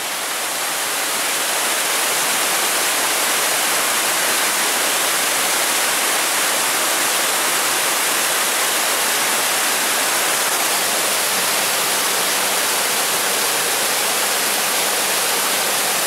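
Waterfall cascading over rock ledges: a steady rush of falling water, a little louder after the first couple of seconds.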